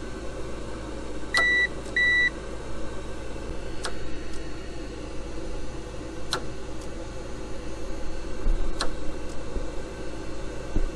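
Two short electronic beeps from the Noritz tankless water heater's remote controller about a second and a half in, as the unit is switched back on, over the steady hum of the heater's fan motor. A sharp click comes every two to three seconds.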